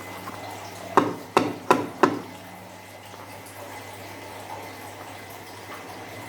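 Wet slime being handled, with four quick squelching plops in a row about a second in, then quieter handling.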